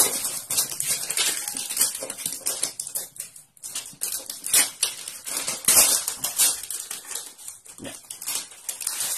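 Thin plastic shrink wrap crinkling and rustling in short irregular bursts as it is torn and peeled off a cardboard smartphone box.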